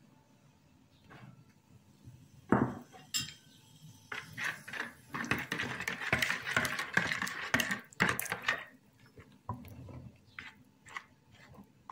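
Spoon stirring a runny dough mixture in a mixing bowl, scraping and clinking against the bowl. There is one sharp knock about two and a half seconds in, rapid stirring from about four seconds to nearly nine, then a few lighter taps.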